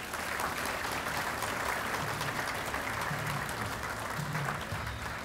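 Audience applauding steadily. Faint background music with low bass notes comes in underneath about two seconds in.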